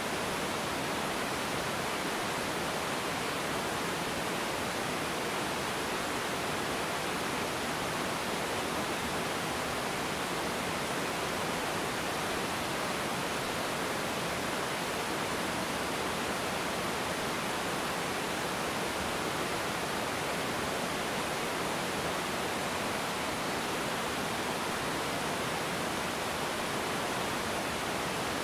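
Small river waterfall pouring over rocks in a steady, even rush of water.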